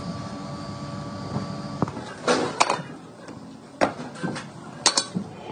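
Steady mechanical hum with a few held tones for the first two seconds, then a run of about six sharp metal knocks and clanks over the next three seconds as hot castings are knocked out of their sand moulds.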